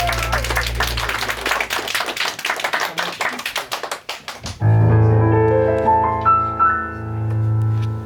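Audience clapping as a held low chord dies away, then about four and a half seconds in an electric keyboard enters with a sustained low chord and a short rising run of notes, opening the next song.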